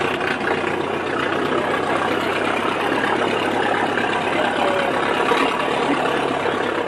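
Simplex Model 50's large four-cylinder T-head engine running steadily, cutting off near the end.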